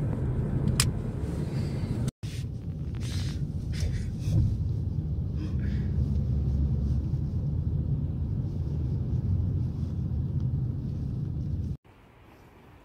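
Steady low rumble of a car driving at speed, road and engine noise heard from inside the cabin, with a short break about two seconds in. Near the end it cuts off abruptly to a faint, quiet background.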